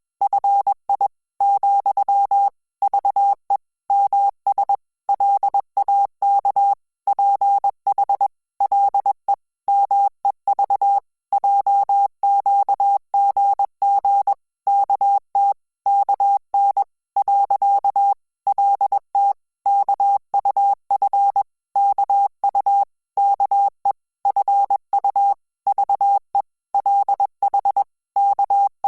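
Morse code audio: a single steady beep tone keyed on and off in short dots and longer dashes with gaps between characters and words, sending Korean Hangul text at 20 words per minute.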